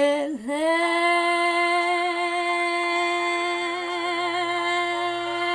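A woman's singing voice holds one long note with a light vibrato, after a quick dip and rise in pitch near the start. This is the drawn-out final word "mine" of the song's last line.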